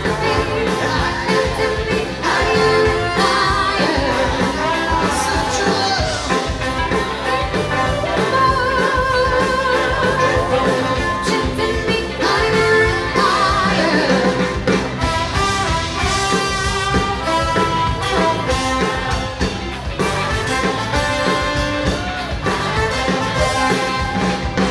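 Live band playing a dance song: a singer over electric guitar, brass and drums, with a steady beat.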